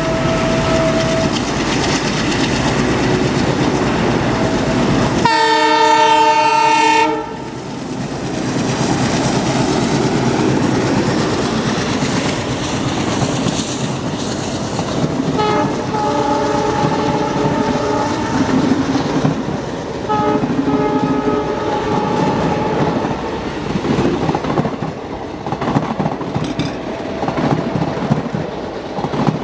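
WDM3D diesel-electric locomotive with an ALCO engine working hard up a steep grade, its engine chugging, with a loud horn blast about five seconds in lasting about two seconds. Later the wheels clatter over the rail joints as the coaches roll by, with two fainter horn sounds in the middle of this.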